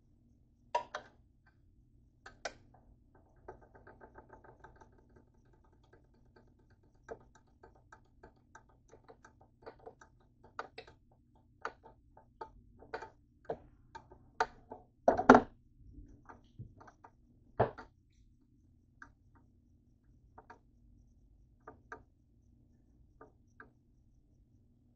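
Scattered light clicks and knocks of things being handled on a kitchen counter, with a quick run of fine rattling ticks about three to five seconds in and one louder thump about fifteen seconds in. A faint steady hum runs underneath.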